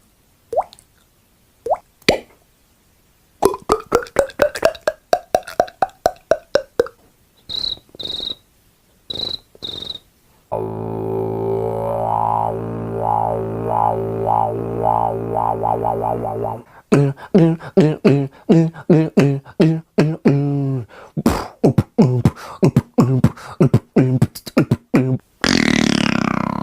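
One man making sound effects with his mouth and voice, beatboxing style: sharp clicks and rapid pulsing sounds, short high whistled blips, then a steady buzzing drone held for about six seconds, followed by fast rhythmic pulses.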